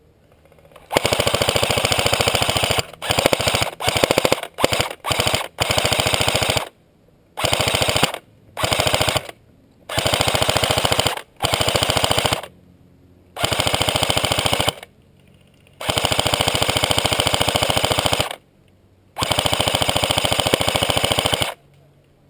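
Airsoft electric gun (AEG) firing full-auto, a rapid stream of shots cycling in bursts. Several short bursts come close together, then longer bursts of a second or two, with short pauses between them.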